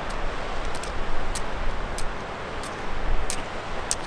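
Mountain creek rushing steadily over granite rocks, with light clicks roughly every half second from trekking-pole tips and boots striking the rocky trail.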